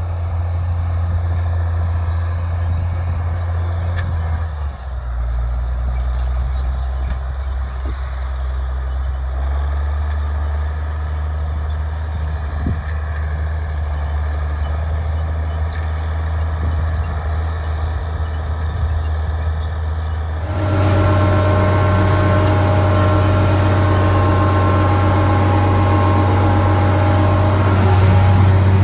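Farm tractor engines running steadily under load while pulling tillage tools. The engine note shifts a couple of times in the first half. About twenty seconds in, the sound jumps louder and closer, as heard from a tractor's seat, with a steady higher whine over the engine.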